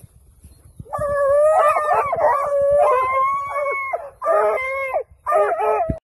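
Several hunting dogs baying and howling at a tattoo (armadillo) they are holding down, their long drawn-out calls overlapping. After a nearly quiet first second the baying starts, runs for about three seconds, then comes in two shorter bursts before cutting off abruptly.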